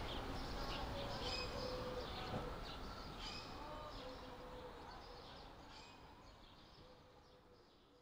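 Birds chirping and calling over a steady outdoor hiss, the whole ambience fading out gradually.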